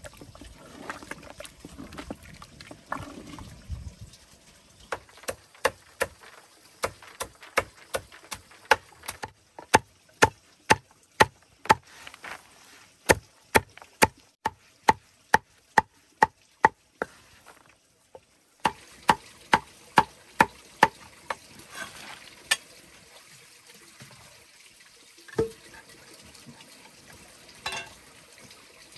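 Large knife chopping a pile of leafy greens and stems, each stroke knocking through onto the surface below in a steady run of about two chops a second, with a short break around the middle.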